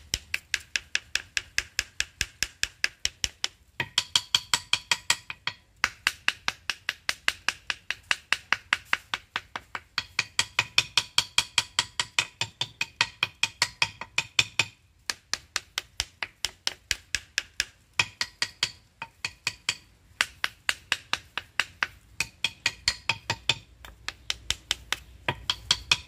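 A knife rapped over and over against a wooden stingless bee hive box, sharp knocks about four a second with a few brief pauses. The tapping drives the bees out of the hive into a plastic bottle fitted over its entrance, ahead of splitting the colony.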